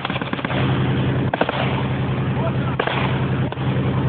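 An armoured vehicle's engine runs steadily close by. Sharp bangs cut through it: a quick cluster at the start, then three more spread over the next few seconds.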